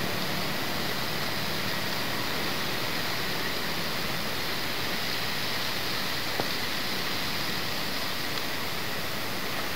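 Steady hiss of falling rain, with one short click about six and a half seconds in.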